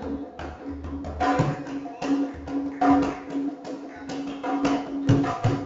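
Two-headed barrel drum beaten by hand in a quick, uneven run of strokes, over one steady held note.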